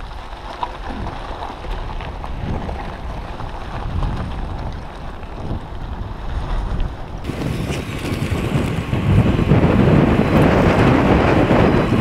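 Wind buffeting the microphone of an action camera on a moving bicycle. It is a steady rumble that grows louder from about eight seconds in.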